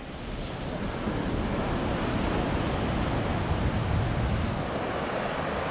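Ocean surf breaking and washing up a sandy beach, a steady rush that grows a little louder after the first second, with wind buffeting the microphone.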